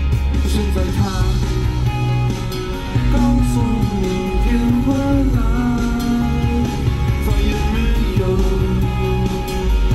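Rock song with a man singing into a handheld microphone over a backing track of guitar and heavy bass, the melody moving in long held notes.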